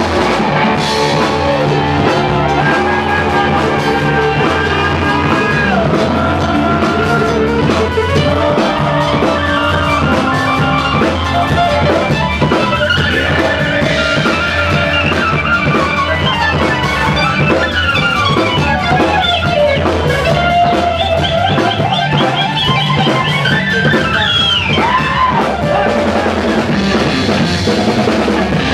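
Instrumental psych rock band playing live: an electric guitar lead with notes that bend and slide in pitch, over drum kit and fretless electric bass.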